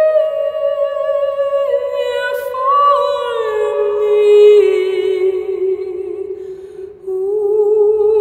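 Wordless a cappella female voice humming a slow melody in long held notes that step downward in pitch. There is a brief break about seven seconds in before a new note begins.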